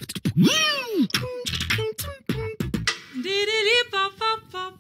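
A man beatboxing: clicks, low kick-drum thumps and a swooping vocal glide. About three seconds in it gives way to a woman scat singing short, stepped notes.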